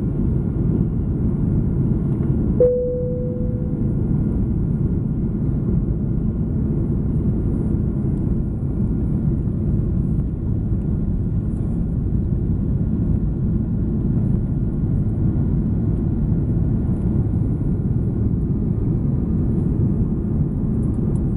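Steady low rumble of an Airbus A330-300 airliner's engines and airflow, heard from inside the cabin during the climb after takeoff. About two and a half seconds in, a single cabin chime rings and fades over about a second.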